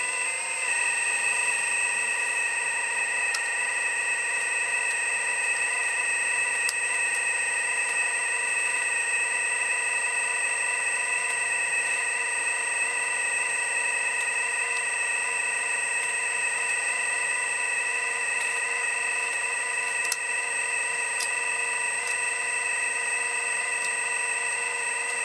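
Hydraulic pump of an Earth Digger 4200 XL RC excavator running with a steady, high, many-toned whine, with a few faint clicks.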